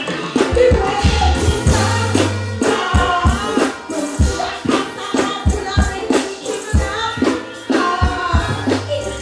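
Live stage music: a woman singing into a microphone over a band's bass line and drums, at a steady loud level.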